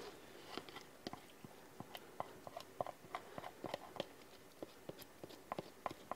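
Silicone spatula scraping and tapping grated onion out of a plastic container into a pot: faint, irregular small clicks and taps, several a second.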